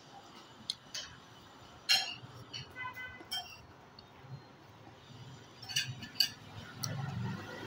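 Metal fork clinking and scraping on a ceramic plate during a meal: several light, irregular clinks, one of them ringing briefly about three seconds in.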